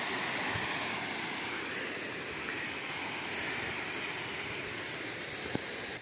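Steady rush of distant falling water from the canyon, easing slightly and cutting off abruptly near the end.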